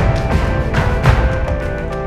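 Background soundtrack music: held notes over a steady drum beat about twice a second.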